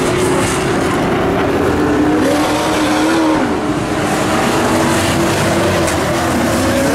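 Several dirt-track race trucks' engines running together as they lap the oval, a steady drone whose pitch wavers and bends as the trucks accelerate and lift.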